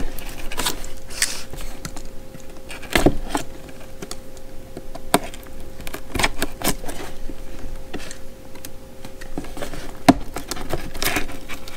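A folding knife slitting the packing tape along the top seams of a cardboard box, with scraping, crinkling and scattered sharp clicks and taps as the blade and hands work the lid. The loudest snaps come about 3 seconds in and again near the end.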